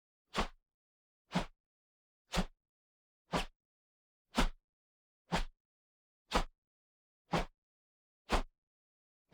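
Short swipe and whoosh sound effects, played one after another about once a second, each a brief rush of noise.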